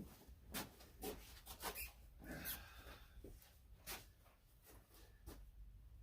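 Faint workshop handling noises: scattered light taps and clicks, with a brief rub a little over two seconds in.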